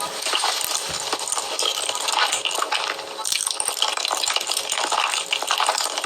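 Close-miked mukbang eating sounds: a dense run of crackly, wet chewing and crunching.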